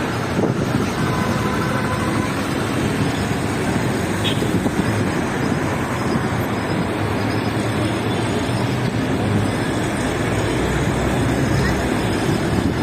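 Steady road traffic noise: a continuous rumble of passing cars.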